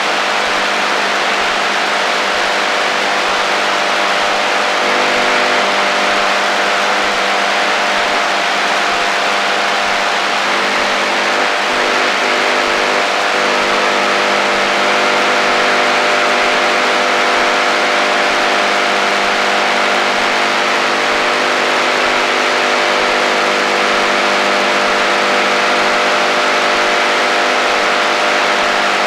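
AM radio interference on the HF shortwave band: a steady hiss of static with several steady low whistling tones underneath. A higher whistle comes in about halfway through.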